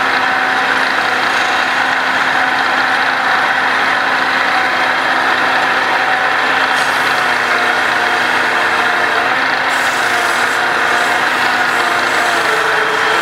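Wood lathe running steadily, spinning a long wooden sofa leg that is being worked with a turning tool, with a constant whirring hum.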